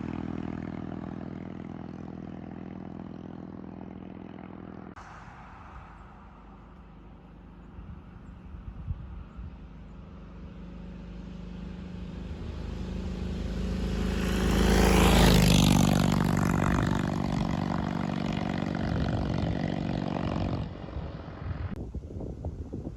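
1941 Indian Chief's flathead V-twin running. It fades over the first few seconds, then builds to its loudest about two-thirds of the way through. It stays steady until it drops away shortly before the end.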